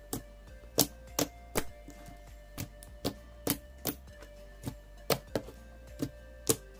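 Clear borax slime being handled, giving sharp, irregularly spaced clicking pops, about a dozen in all, over faint background music.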